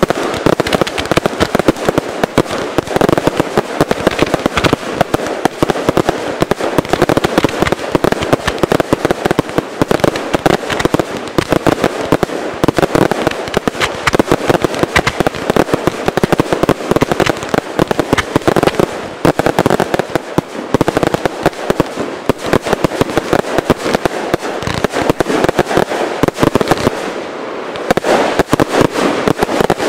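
Fireworks display at full intensity: rapid launches and bursts overlap into a near-continuous crackle of reports, with a short lull near the end.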